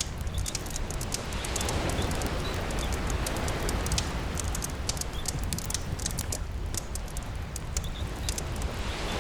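Campfire crackling with frequent sharp pops over steady rain and the wash of sea waves, the surf swelling up about a second and a half in and again near the end.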